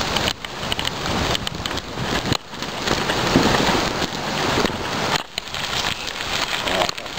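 Wind rushing over the microphone of a camera carried on a moving bicycle, with the bike's tyres rolling along the path. It is a steady rushing noise broken by a few brief, sudden dips.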